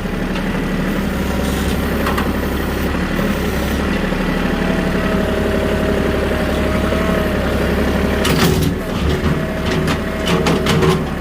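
Engine of a vehicle running steadily at low speed under load while it drags a skid steer on a chain, a constant low drone with a thin whine joining about four seconds in. Scattered clanks and knocks about eight seconds in and again near the end.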